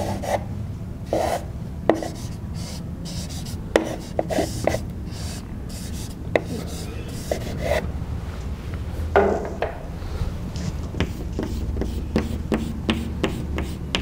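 Chalk scratching and tapping on a blackboard in short strokes as lines are drawn and a profile is shaded with hatching; the strokes come in a quick, even run over the last few seconds.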